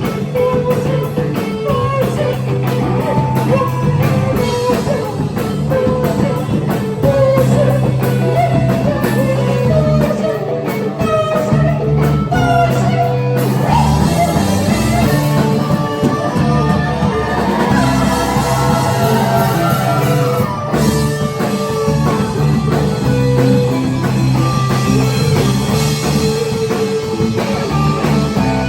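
Indie rock band playing live: electric guitars over bass and drum kit, with a wavering guitar or vocal line in the middle.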